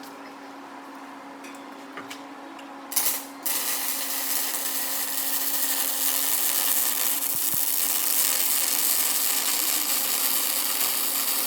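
Wire-feed (MIG) welding arc with .035 solid wire at 28 volts and 650 inches a minute, laying a weld pass on 3-inch solid steel bar. The machine hums steadily; about three seconds in the arc strikes with a brief burst, then runs as a steady hiss until near the end.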